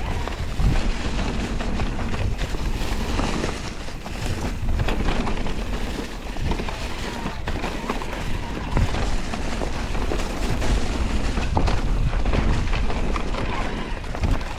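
Wind buffeting the microphone over the rolling noise, knocks and rattles of an electric mountain bike riding a rough trail.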